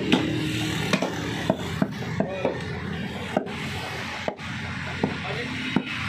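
Butcher's knife cutting raw buffalo meat and knocking against a wooden chopping block: irregular sharp knocks, roughly one every half second to second, with rubbing and scraping of meat on the wood between them.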